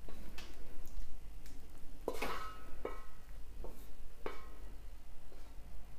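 A wooden utensil scraping and knocking against a wok as beef and sauce are pushed out into a serving dish. It is a run of short scrapes and taps, the loudest about two seconds in with a brief metallic ring.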